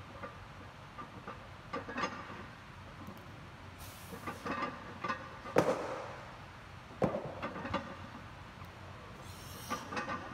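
Metal weight plates and barbell clanking in a gym: scattered sharp clanks and clicks, the two loudest about five and a half and seven seconds in.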